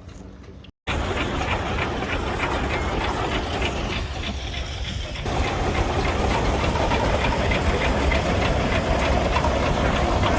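Steam engine working close by: a loud, steady hiss with a fast, even clatter. The sound breaks off for an instant about a second in and steps louder after about five seconds, where the footage cuts.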